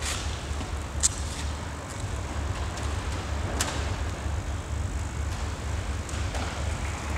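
Steady low background rumble with a faint hiss, broken by a few sharp clicks, the loudest about a second in and another a little past three and a half seconds.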